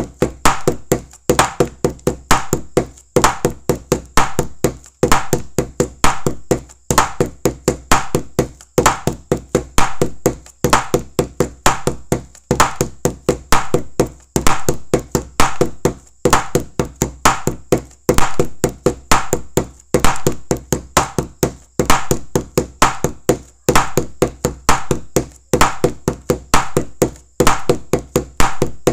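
Rhythmic percussion of sharp knocks and taps in a looped pattern that repeats just under every two seconds, most likely a backing track.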